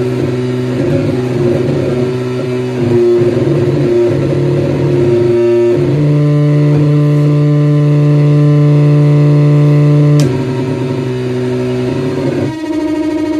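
Saxophone feedbacker, a saxophone with a loudspeaker in its bell driven through effects pedals, feeding back into loud, layered low drone tones. The held tones jump to new pitches in steps, about three, six, ten and twelve and a half seconds in, with a short click at the ten-second change.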